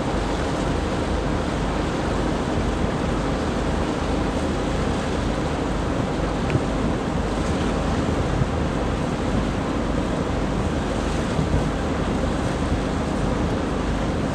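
Steady rush of water and wind from a boat under way, with the low, even hum of its engine underneath and wind buffeting the microphone.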